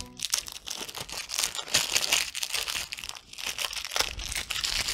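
Clear cellophane wrapper from a deck of playing cards being peeled away and crumpled in the hand: a continuous run of crisp crinkling crackles.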